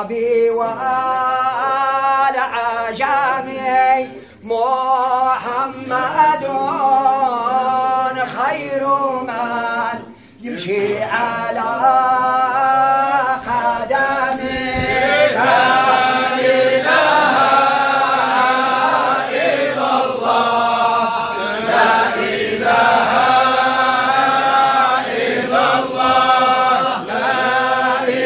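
A group of men chanting a Sufi religious song together without instruments. Short breaks come about four and ten seconds in, then the chant runs on unbroken.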